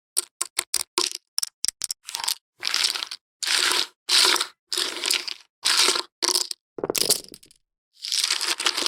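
Poker chips clacking together: a quick run of single sharp clicks for about two seconds, then a series of longer rattling clatters, each about half a second, with short silences between them.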